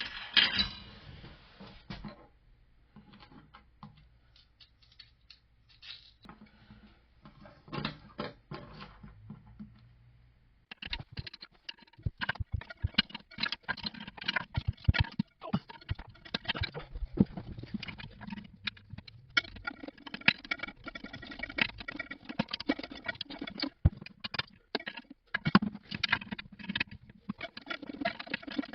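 Small clicks, taps and scratches of hands working on toilet tank hardware. They come sparsely at first and turn into a dense, continuous clatter about a third of the way in.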